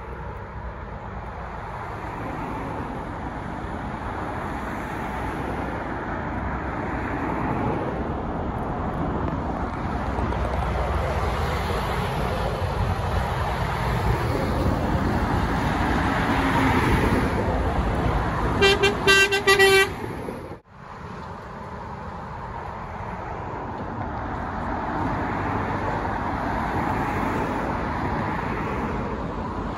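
Lorries and other traffic passing on a main road, the engine and tyre noise swelling and fading as each goes by. About two-thirds through, a horn sounds a quick run of short toots, and the sound then breaks off abruptly before more passing traffic.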